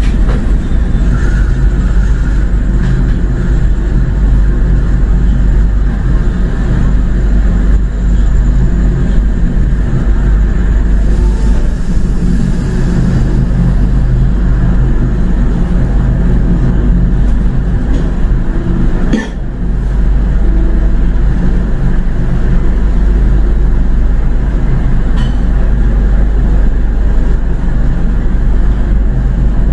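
Passenger train running, heard from on board: a loud, steady low rumble and hum, with a single sharp knock about 19 seconds in.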